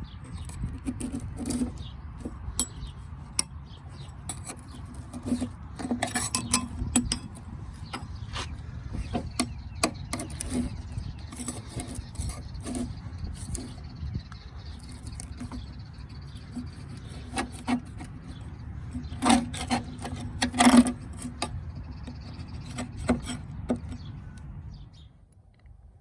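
Irregular clanks, clicks and scraping of metal parts and tools being handled while working on a lawn tractor's mower deck, with two louder knocks about two thirds of the way in, over a steady low rumble.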